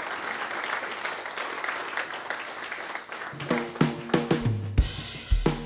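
Audience applauding, with music led by a drum-kit beat coming in about three seconds in and taking over.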